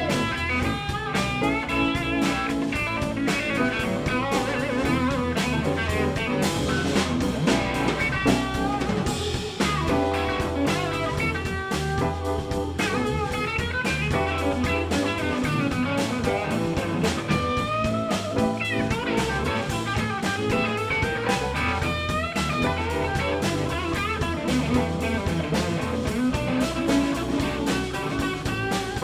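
Live electric blues band playing an instrumental break: a lead electric guitar solo with bent notes over a steady bass and drum groove.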